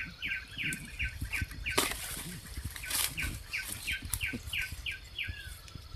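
A bird or insect chirping over and over, about three short falling notes a second, over rustling in undergrowth. Two sharp snaps, about two and three seconds in, are bamboo shoots being broken off by hand.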